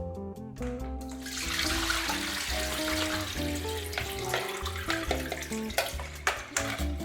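Salt-water brine with sardines in it poured from a bowl into a colander: water pours and splashes for about three and a half seconds starting a second in, followed by a few light knocks. Acoustic guitar background music plays throughout.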